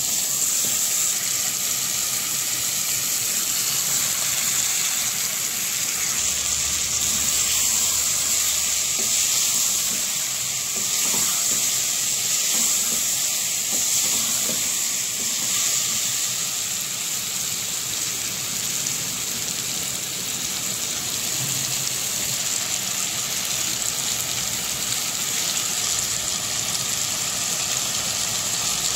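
Mutton, onions and raw mango sizzling in hot oil in a metal pot, a steady hiss, with a wooden spoon stirring through the food.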